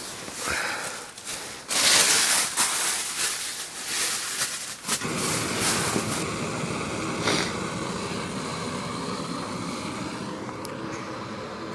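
Loud crackly rustling in the first five seconds, then a steady rushing hiss from a small canister gas stove burning under a pot of water.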